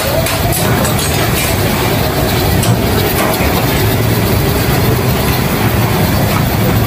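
Steady, loud din of a busy commercial kitchen with a tandoor oven fired up and running: an even roar with no single standout event.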